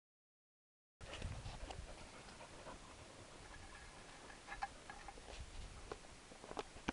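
After about a second of dead silence, faint scattered clicks and light taps of a hand handling a frying pan and the food in it.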